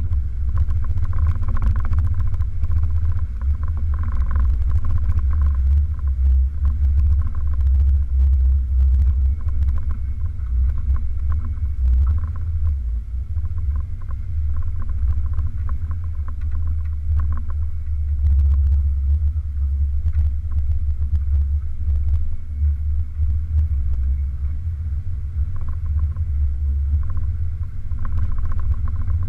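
Toyota's engine and running gear rumbling low and steadily as it drives a dirt and mud off-road trail, heard from a camera mounted on the hood.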